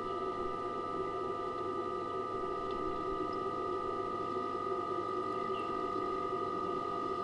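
A steady hum made of several constant tones that does not change, with a few faint, short high chirps over it.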